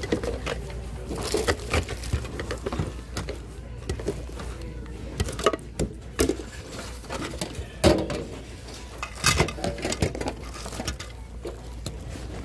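Hands rummaging through a bin of mixed secondhand goods: irregular knocks, clinks and rustles of plastic, glass and fabric being shifted and dropped, over a steady low hum.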